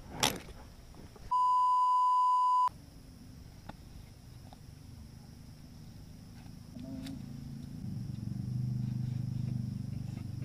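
Censor bleep: one steady, high beep tone about a second and a half long, starting about a second in, with all other sound cut out beneath it. Afterwards there is only a faint outdoor background, with a low hum that builds up near the end.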